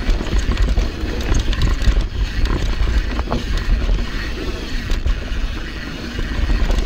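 YT Tues downhill mountain bike rolling fast down a loamy dirt trail: steady tyre rumble on the dirt with small rattles and clicks from the bike, and wind buffeting the action camera's microphone.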